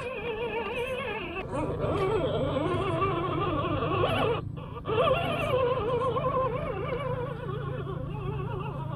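Background music: a wavering, voice-like melody over a steady low hum, breaking off briefly about halfway through.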